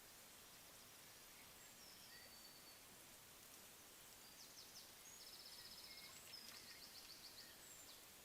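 Faint birdsong over steady background hiss: a few high whistled notes, then about halfway in, fast trills of rapidly repeated high notes.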